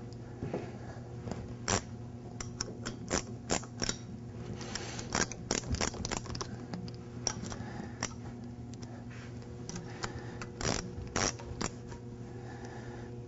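Ratchet wrench clicking in short, irregular runs as the manifold bolts are run down before torquing, with a few metallic ticks of the tool on the steel assembly.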